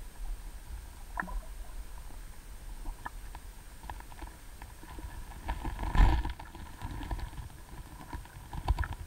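Underwater sound in a creek, heard through a submerged camera: a steady low rumble with scattered faint clicks and ticks, a loud thump about six seconds in and a smaller one near the end.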